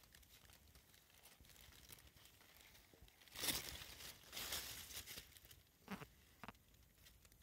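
Mostly near silence, broken by a few faint, short rustling noises about three to five seconds in and two soft knocks near the end, as a caiman lying in a cattle water trough is prodded.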